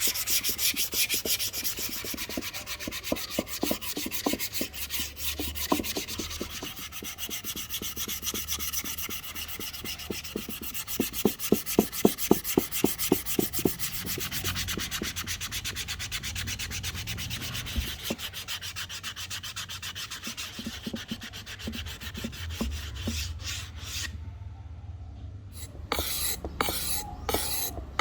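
Sandpaper worked by hand over an ebony axe handle in quick back-and-forth strokes, louder for a few seconds in the middle. Near the end it breaks off briefly, then comes back in slower, separate strokes.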